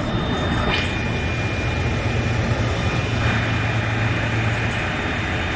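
Heavy crane engine running steadily as the crane lifts a cut tree section, with a thin steady high whine joining about a second in.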